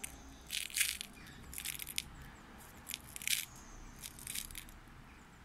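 Steel BBs rattling inside a small bottle as it is turned in the hand, in several short, sharp bursts.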